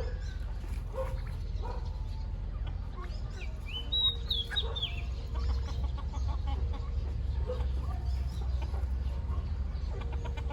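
Chickens clucking and calling while they feed on scraps, with a quick run of high chirps about four seconds in, over a steady low rumble.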